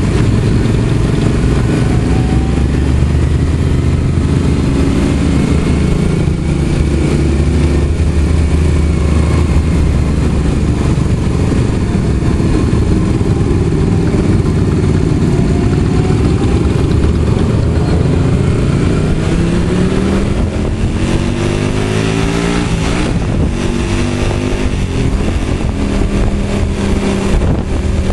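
Motorcycle engines running at low speed in a group, a steady low drone. About two-thirds of the way through, the engine note rises as a bike accelerates.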